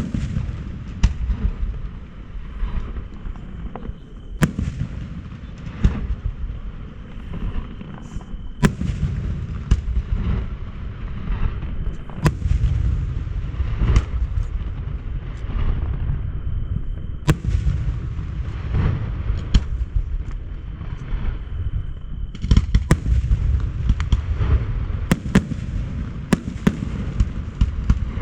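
Fireworks display: a continuous low rumble of shell bursts with many sharp bangs, the loudest cracks every few seconds and a dense volley near the end.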